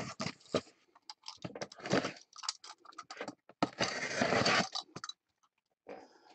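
Cardboard case being handled and shifted on a table: short scraping and rustling sounds of cardboard, with a longer, louder scrape about four seconds in.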